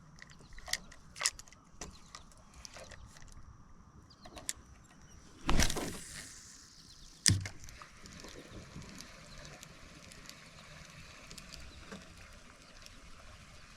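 Fishing rod and reel being cast from a kayak: a few small clicks, a loud swish of the cast about five and a half seconds in, then a sharp click of the reel engaging. After that comes a low, steady winding noise as the bait is retrieved.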